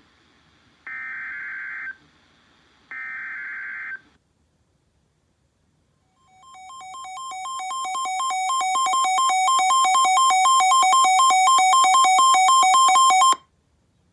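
Emergency Alert System signalling: the last two of three SAME digital header bursts, each a harsh data screech about a second long with a one-second gap. After a short pause comes the EAS two-tone attention signal, which fades up over a few seconds, holds loud and steady, and cuts off suddenly about 13 seconds in.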